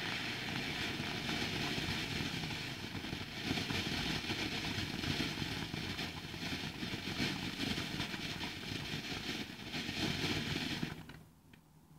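Ground fountain firework spraying sparks: a steady rushing hiss with fine crackling, dying away near the end as the fountain burns out.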